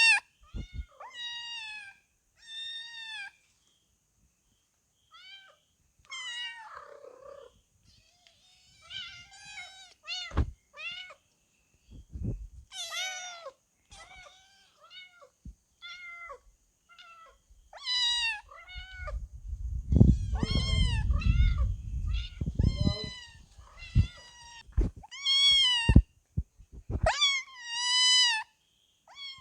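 Kittens mewing over and over: many short, high-pitched mews that rise and fall, coming in quick runs with brief gaps. From about 18 to 23 seconds in a low rumble sits under the mews.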